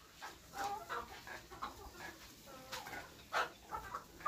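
Flock of desi (local) chickens, mostly laying hens, clucking with many short overlapping calls.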